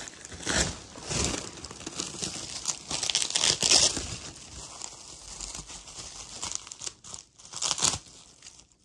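Paper wrapping being crinkled and torn off by hand, in a series of irregular rustling bursts, loudest about three to four seconds in and again near the end.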